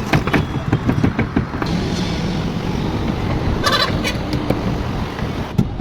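Construction-site work noise: rapid knocks, about four or five a second, for the first second and a half, then a steady rumble with a brief high chattering sound near the middle.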